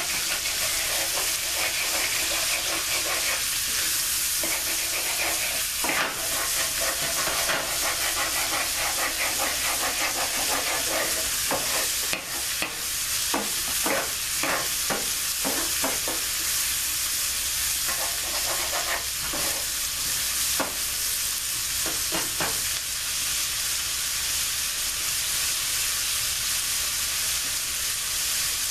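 Sliced onions and bell peppers sizzling in bacon fat in a frying pan, with a wooden spoon scraping and stirring across the pan bottom now and then, most often around the middle.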